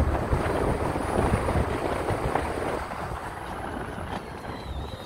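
Car driving noise heard from inside the cabin: a steady rumble of engine and tyres on the road, growing quieter about three seconds in.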